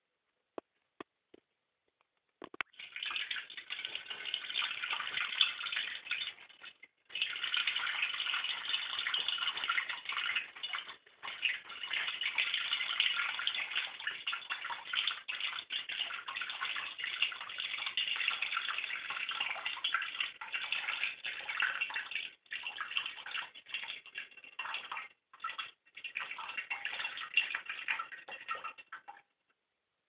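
A cockatiel bathing in a shallow plate of water, splashing in bouts that start about two and a half seconds in and break off briefly a few times. A few faint clicks come before the splashing begins.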